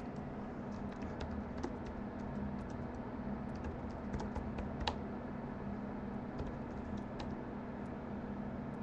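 Typing on a computer keyboard: irregular light key clicks, one sharper click a little before the middle, over a steady low hum.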